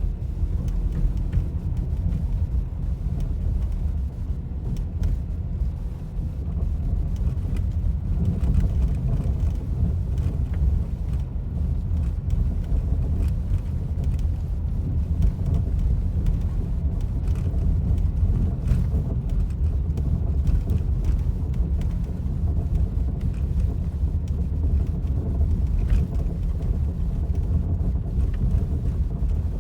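Steady low road and tyre noise inside the cabin of a 2019 Škoda Octavia A7 facelift driving on an ordinary road, with scattered irregular knocks from the front left brake caliper. The dealer calls this knock common on many of these cars and not a fault.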